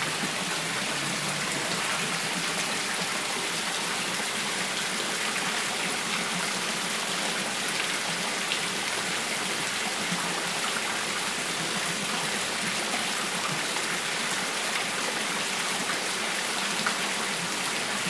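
Water spouts pouring into a garden fish pond: a steady, unbroken splashing.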